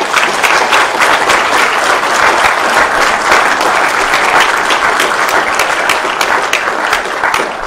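Audience applauding: many hands clapping at once, starting suddenly and beginning to thin out near the end.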